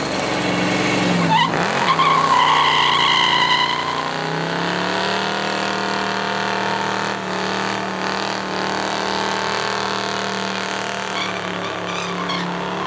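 A car doing a burnout: its engine is held at high revs while the spinning tyres squeal. The engine note dips and climbs back in the first two seconds with a wavering tyre squeal over it, then holds steady and falls away near the end.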